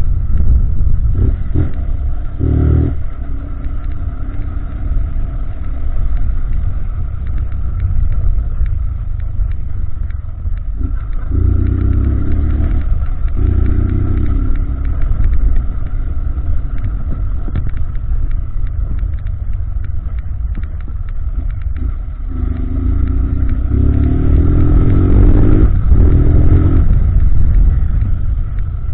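Honda CG 160 Titan single-cylinder motorcycle, fitted with an exhaust meant to sound like a BMW G 310, being ridden and opened up in several bursts of throttle. The pitch climbs through the revs, about 2 seconds in, again around 12 seconds and longest in the last third. A steady low wind rumble on the microphone runs underneath.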